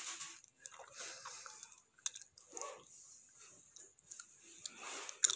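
Close-up mouth noises from a girl right at the phone's microphone: irregular breathy puffs and wet smacks, with a couple of sharp clicks.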